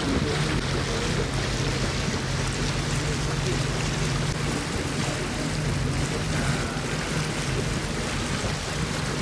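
A motor boat under way: the engine's steady low hum under water rushing and churning along the hull and wake.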